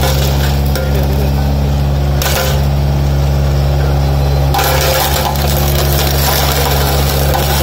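A tandem road roller's engine runs steadily while its steel drum rolls over rows of liquor bottles, crushing them with a dense crunching and cracking. The crunching swells about two seconds in and again from about halfway on.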